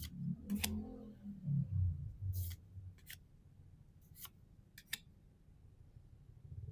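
Trading cards being handled and flipped through: several short, crisp card snaps and slides spaced a second or so apart, over a low handling rumble in the first two seconds.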